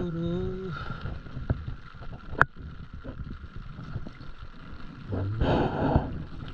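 Stand-up paddle strokes in the water, with a swishing splash near the end. A low steady hum stops within the first second, and a few sharp clicks sound, the loudest about two and a half seconds in.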